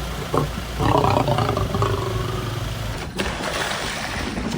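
A large wild animal calling: one drawn-out call starting about a second in and lasting close to two seconds. The sound changes abruptly about three seconds in.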